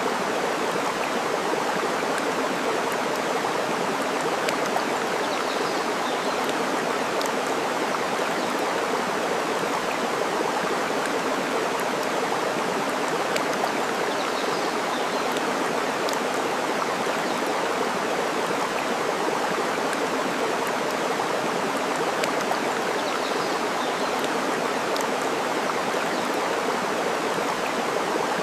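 Steady rush of flowing water, with faint pops from a crackling wood fire and a few faint bird chirps.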